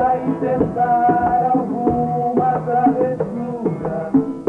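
Small acoustic folk group playing and singing: voices carrying a melody over strummed acoustic guitar, a hand drum and flute.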